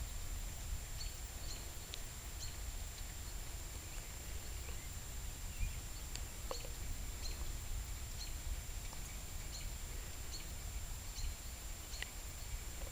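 Night-time storm ambience: a steady low rumble of rain and wind noise, with short high chirps from small animals every half second to a second and a thin steady high whine above them.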